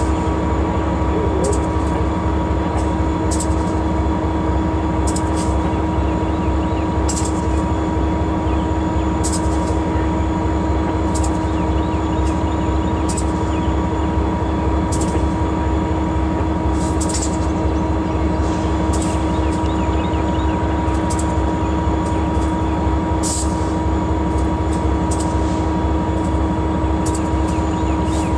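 Diesel locomotive heard from inside its cab: a steady engine rumble with a constant hum, and light sharp ticks roughly once a second.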